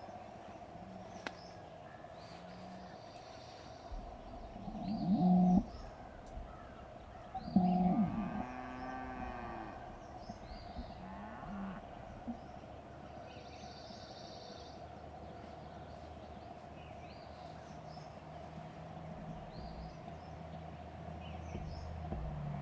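Cattle mooing: two long, loud moos about five and eight seconds in, with a few shorter, fainter lows around them.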